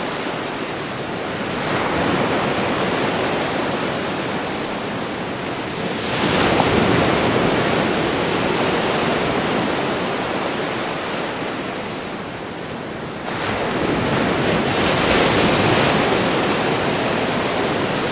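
Sea waves washing onto a shore, a steady rush of surf that swells three times: a small surge early, the loudest about a third of the way through, and another late on.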